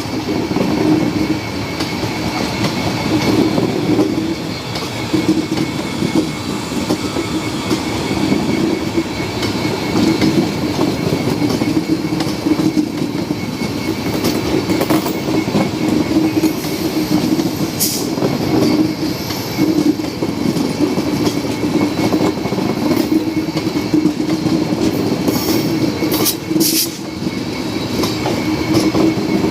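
Indian Railways passenger train running past at speed, its wheels clattering steadily over the rail joints with a continuous rumble, and a few sharp high clicks about two-thirds of the way through and again near the end.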